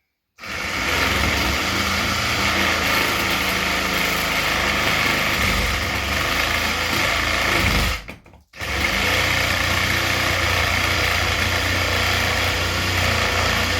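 Handheld power saw running as it cuts the marked opening in the wall, starting about half a second in, stopping briefly after about eight seconds, then starting again.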